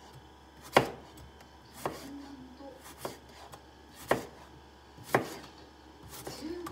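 Kitchen knife slicing a cucumber into thin rounds on a cutting board: a sharp tap of the blade hitting the board about once a second, six times.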